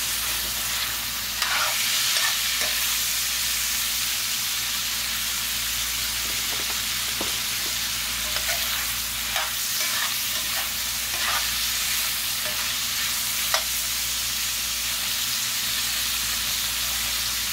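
Pork and smoked sausage pieces sizzling as they brown in lard in a deep cast-iron skillet, with a steady frying hiss. A metal spoon stirs them, scraping and clinking against the iron now and then, with one sharper clink near the end.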